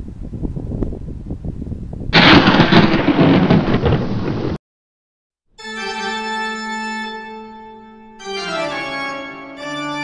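A loud, dense noise full of small clicks that cuts off suddenly. After a second of silence, sustained organ chords play and move to new chords twice.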